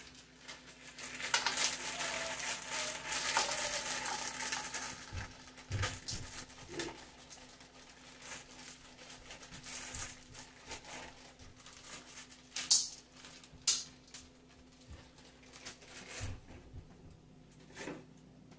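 A plastic bag of frozen mixed vegetables crinkling as they rattle out of it into a wok, a dense run of noise over a few seconds. Then scattered small knocks and two sharp clicks of kitchen utensils.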